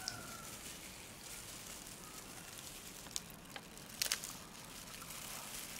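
Plastic-gloved hands pulling apart stir-fried seafood in its sauce: a few short sharp cracks and crinkles, the loudest a pair about four seconds in, over a faint steady hiss.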